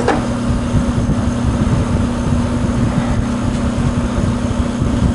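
1983 Gibson SlumberMaster window air conditioner running, with a steady hum under a constant rush of blown air.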